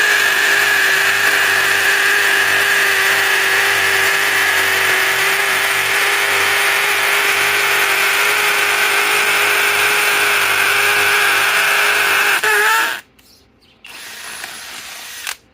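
Flex FX1231 compact hammer drill boring a concrete bit into a concrete retaining wall. It runs loud and steady for about thirteen seconds, then stops abruptly. A shorter, quieter burst follows near the end.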